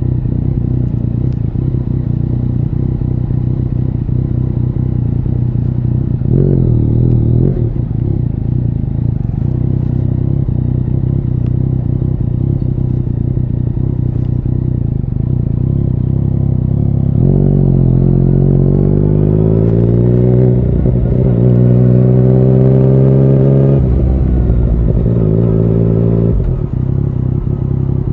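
Yamaha MT-09 three-cylinder engine with an Akrapovic exhaust, running at low revs while riding, with a short rev about six seconds in. From about seventeen seconds in it accelerates through the gears: the pitch climbs and drops back three times at each shift, then settles back to a steady run near the end.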